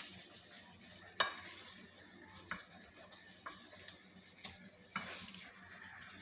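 Chicken and potato curry frying in oil in a pot with a steady sizzle, while a utensil stirs it and knocks against the pot about six times, loudest about a second in.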